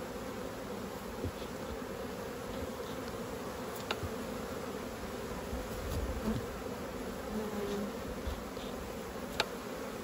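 Honeybees buzzing in a steady hum over an open hive. Two sharp clicks stand out, a few seconds in and near the end.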